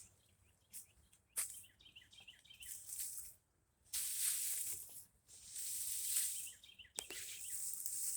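Leafy brush rustling and swishing in bursts as it is pulled and cleared, with two sharp snaps, about a second and a half in and near the end. Small birds chirp in the background.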